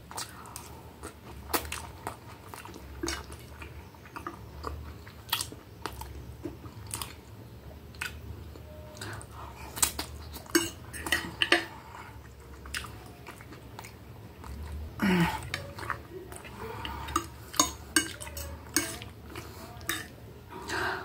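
Close-up chewing of spaghetti and a hamburger patty, with a metal fork and knife clicking and scraping against the plate. Clicks come irregularly throughout. About fifteen seconds in there is a brief falling vocal sound.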